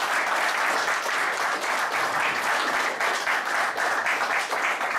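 An audience applauding, many hands clapping steadily at an even level.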